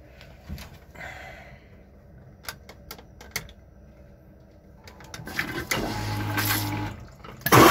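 A train carriage's toilet flush system being test-run. After a few faint clicks, it starts up about five seconds in with a rising mechanical noise and a steady hum. Right at the end a loud rush of air bursts out.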